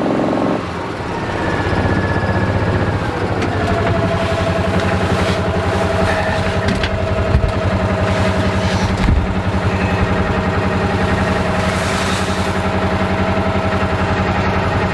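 Utility vehicle's engine idling steadily, with a few sharp knocks about halfway through.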